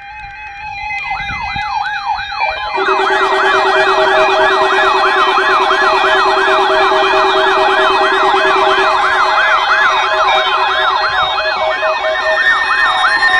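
Several NOAA weather alert radios sounding their alarms at once on a Required Weekly Test. Warbling siren tones rise and fall about three times a second, layered with steady and beeping alert tones. The radios come in one after another over the first three seconds.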